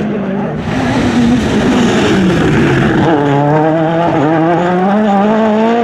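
World Rally Car's turbocharged four-cylinder engine under hard acceleration. The pitch wavers and dips about two and a half seconds in, then climbs steadily as the car accelerates.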